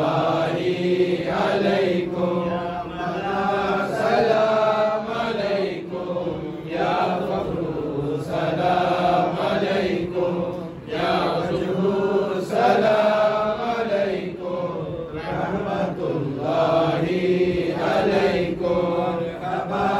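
Men's voices chanting a devotional salam, the standing salutation to the Prophet Muhammad, in long melodic phrases with brief breaths between lines.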